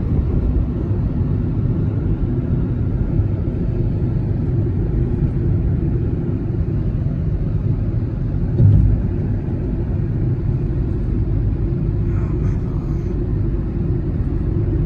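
Road and engine noise heard from inside a moving car: a steady low rumble, with one heavier low thump a little past halfway, likely a bump in the road.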